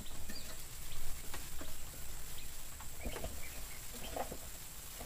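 Scattered small clicks and taps, with a few faint, short, high bird chirps about three seconds in, over a low rumble.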